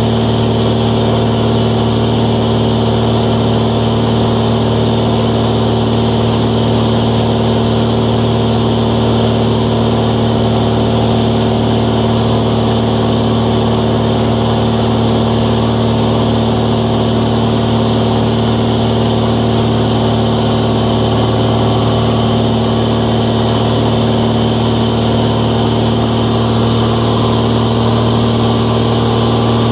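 Steady in-flight drone of a 1993 Velocity S-FG's 180 hp pusher engine and propeller, heard inside the cabin: a constant low hum with several even tones over a hiss of airflow.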